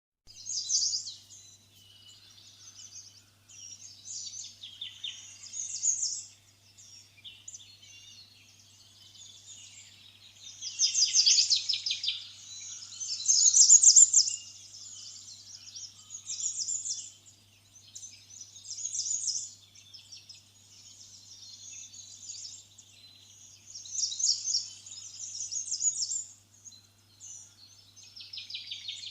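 Small songbirds chirping and trilling in repeated high phrases of a second or two, loudest in the middle, over a faint steady electrical hum.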